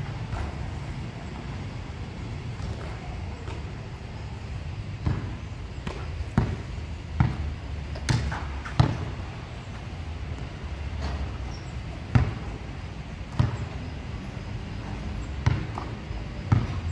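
A basketball bouncing on a hard outdoor court during one-on-one play: about ten sharp, irregularly spaced bounces, mostly after the first few seconds, over a steady low rumble.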